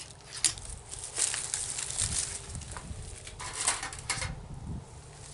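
Two sharp clicks, one at the very start and one about half a second later, then shuffling footsteps and scraping, rustling noises from someone moving about and handling a crossbow pistol.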